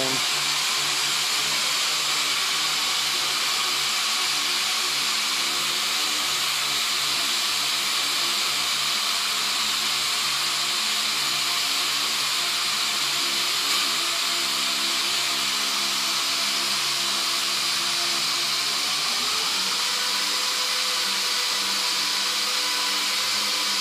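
Steady machine whirring hum with a hiss over it, its pitch stepping slightly about nineteen seconds in.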